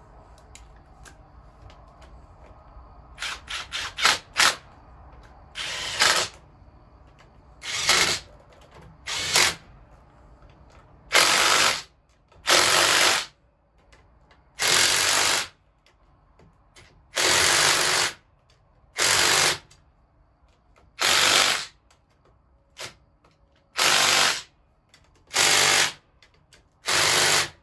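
Cordless power driver running bolts into the motorcycle's front fork clamps in a dozen or so short bursts, each about a second long, with pauses between them.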